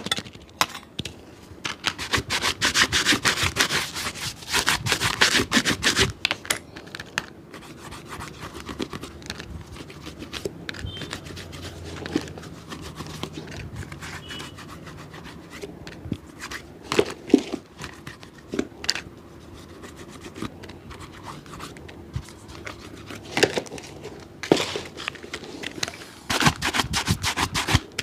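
Fast back-and-forth rubbing strokes on a shoe during cleaning and polishing: a dense run of strokes for the first six seconds, a quieter stretch with a few scattered taps, then the strokes start again near the end.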